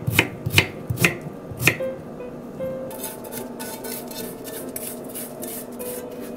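Kitchen knife chopping daikon radish on a wooden cutting board: four sharp chops in the first two seconds. After that, a metal spoon scrapes sugared strawberries into an enamelled pot, with soft background music throughout.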